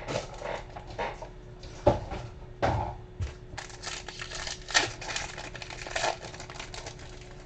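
Trading-card packs and their cardboard blaster box being opened by hand: irregular crinkling and tearing of pack wrappers with quick clicks and taps, and a few soft knocks about two and three seconds in.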